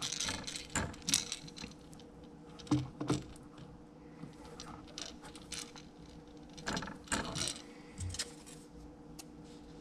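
Scattered clicks and light metallic rattles of a helping-hands stand's jointed arms and alligator clip being moved and reset as a lure body is turned over in it, in a few short clusters over a faint steady hum.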